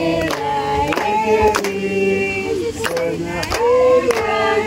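A group of voices singing a birthday song together in chorus, with hand claps keeping time.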